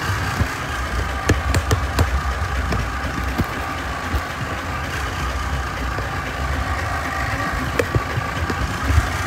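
Tractor engine running steadily, with scattered sharp clicks and knocks over it, a cluster about a second or two in and more near the end.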